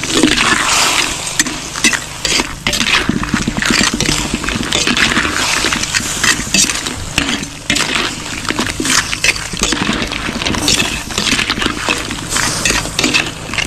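Metal spatula scraping and clinking against a large metal wok as blue crabs simmering in coconut milk are stirred and basted, with the sauce bubbling.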